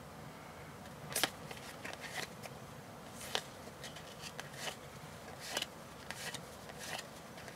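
A deck of board-game cards handled in the hands, fanned and flipped through one by one. About seven faint card slides and snaps come at uneven intervals.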